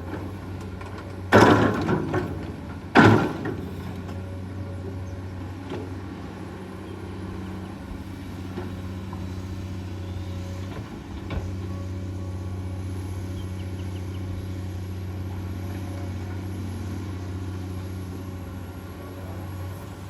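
Komatsu PC200-8 hydraulic excavator's diesel engine running steadily, with two loud clanks about a second and a half apart near the start.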